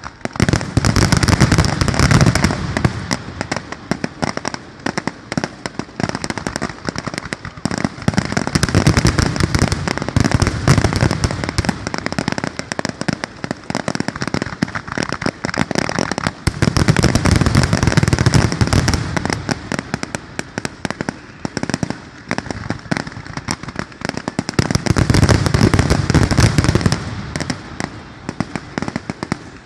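Fireworks finale barrage: a nonstop stream of rapid bangs and crackle, swelling into heavy volleys of deep booms four times, about every eight seconds.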